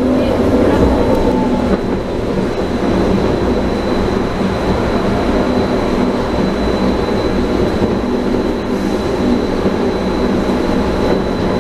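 Rubber-tyred Taipei Metro Wenhu line train running at speed, heard from inside the front car: a steady rolling rumble with a constant high whine over it.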